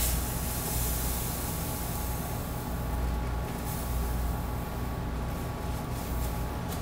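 Granulated sugar pouring from a bag into a measuring cup as a steady hiss, with a low hum underneath.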